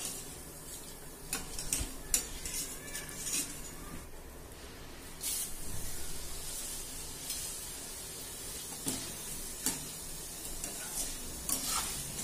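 Thick poha (flattened rice) sizzling as it deep-fries in hot oil in a kadhai. A wire-mesh strainer stirring it scrapes and clinks against the pan now and then.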